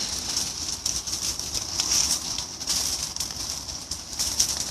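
Burning brush and dry vegetation crackling, with irregular sharp snaps over a steady high-pitched hiss.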